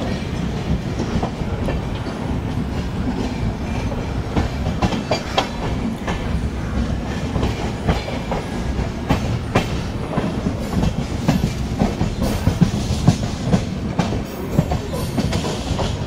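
Coaches of an Indian Railways passenger express passing close by: a steady rumble with many clicks of the wheels over rail joints. The clicks come thicker after about twelve seconds, as the last coaches go by.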